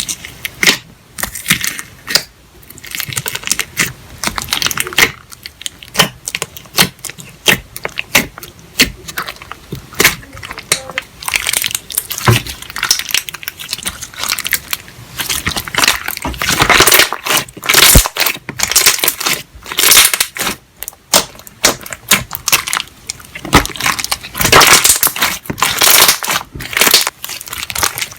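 Slime being squeezed, stretched and pressed by hand, making irregular sticky crackles and pops with crinkly squishing. It gets denser and louder in a few stretches.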